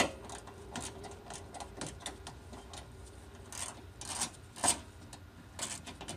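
A hand ratchet clicking irregularly, with metal scraping, as a long screw holding the radiator is backed out. A faint steady hum runs underneath.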